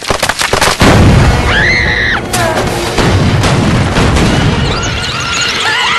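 Cartoon sound effects and score: a rapid run of crashing impacts leads into a loud low rumble, with a brief high held tone about two seconds in. Sustained music chords come in near the end.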